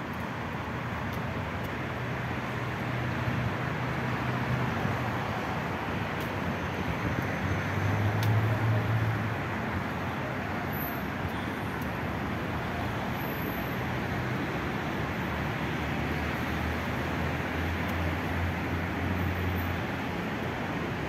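Steady noise of road traffic, with engines humming past; one vehicle passes louder about eight seconds in.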